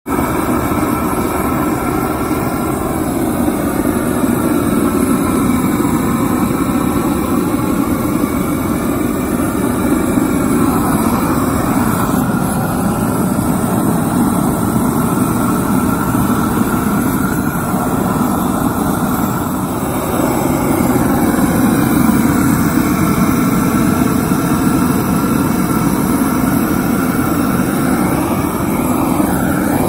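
A hose-fed blowtorch flame burning with a loud, steady rush. Its tone wavers slowly as the flame is swept over rough-sawn Douglas fir to char the surface.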